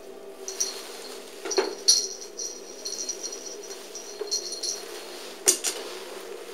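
Small bell on a cat toy jingling in short, repeated shakes as a cat plays with it, with a couple of sharp knocks, one about two seconds in and a louder one near the end, over a steady low hum.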